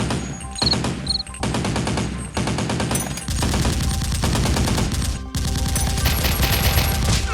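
Rapid automatic gunfire in several long bursts, with short breaks between them.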